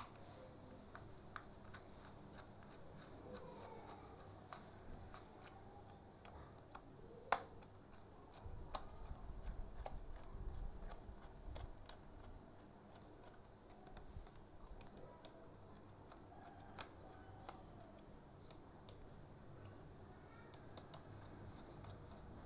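A small Phillips screwdriver working laptop case screws loose. Runs of light, quick clicks come a few a second, with several sharper clicks among them.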